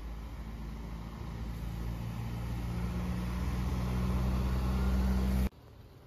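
Bus engine running close by, a steady low hum that grows louder, then cuts off suddenly about five and a half seconds in.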